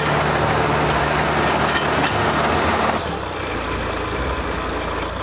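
John Deere crawler dozer's diesel engine running steadily close by with a low hum. About three seconds in it drops to a quieter, more distant engine sound.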